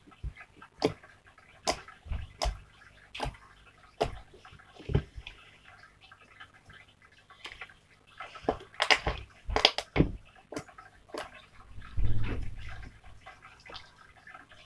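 Slime being kneaded and squished by hand in a bowl: irregular wet clicks and smacks, coming faster in a cluster around the middle, with a dull thump about three-quarters of the way through.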